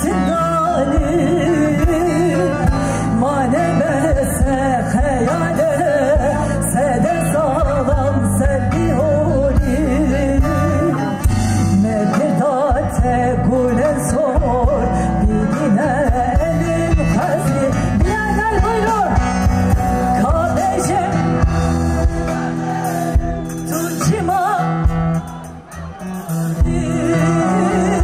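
Live concert performance of a folk song sung in the mother tongue: a singer with instrumental accompaniment. The music drops briefly near the end.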